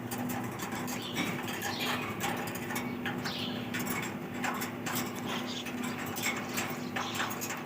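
Budgerigars chirping and chattering: many short, rapid chirps and clicks, over a steady low hum.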